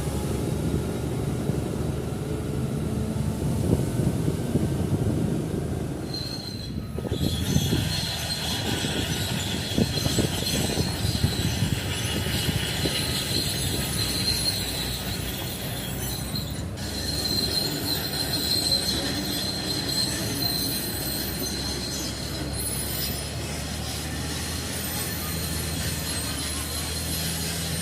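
Excavator travelling on its steel tracks: a steady diesel engine hum under a high-pitched squeal from the track running gear, which sets in about six seconds in.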